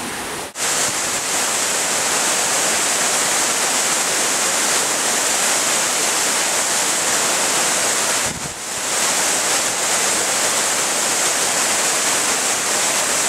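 Steady rush of fast-flowing, muddy water over rocks and a waterfall pouring down, with two brief drops in level, about half a second in and around eight seconds in.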